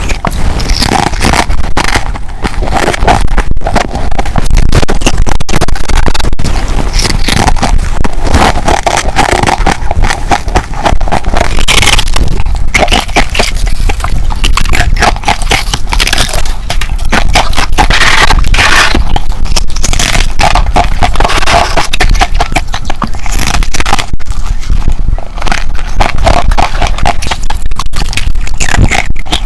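Humidifier ice being bitten and chewed up close: a continuous run of loud crunching and crackling bites.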